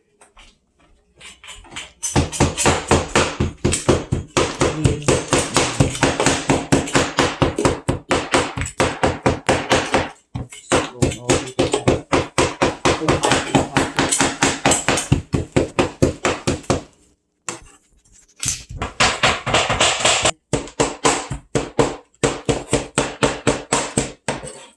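Chicken being chopped into small pieces through the bone with a knife on a cutting board, in fast, steady strokes of about four a second. The chopping pauses for a moment about 17 seconds in, then carries on.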